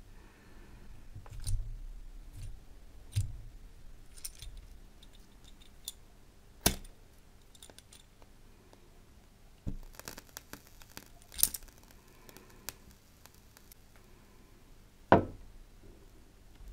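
A brass trench lighter handled and lit: scattered small metal clicks and taps as its lid is opened and its flint wheel struck, with a sharp click a little before halfway and a run of quick crackly clicks about two-thirds through. A loud snap comes near the end.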